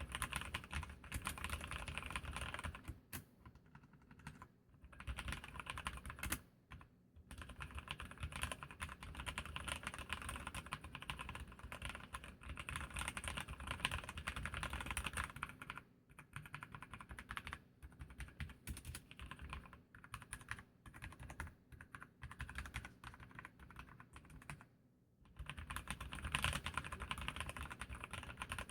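Archon mechanical keyboard with Kailh Red linear switches being typed on in fast, continuous runs of keystrokes, with a few short pauses between runs.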